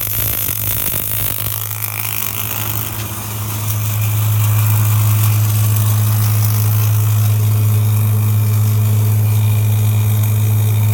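Steady low electrical hum of running shop equipment, which gets louder and steadier about four seconds in, over a faint hiss.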